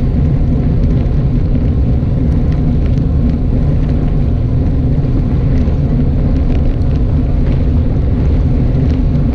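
Loud, steady wind buffeting and road rumble on a bike-mounted camera's microphone as a road bike rolls along a rough tarmac lane into a headwind.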